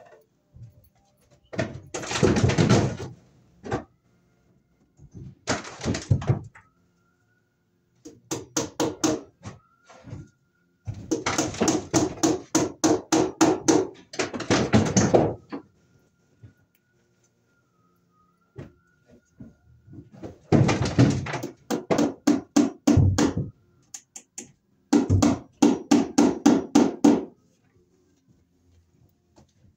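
Hammer driving cable staples into wooden ceiling joists to fasten electrical cable. The blows come in quick runs of several strikes a second, about six runs with pauses between.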